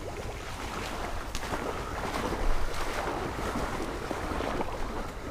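Wind buffeting the microphone in open marsh, a steady low rumble with a few faint ticks.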